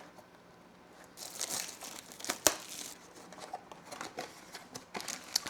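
Plastic wrap on a Pokémon card booster bundle box crinkling and tearing as it is pulled off, starting about a second in, with one sharp click about halfway through.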